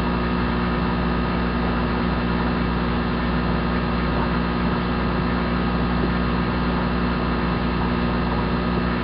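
Steady electrical mains hum: a constant buzz of many fixed tones that does not change.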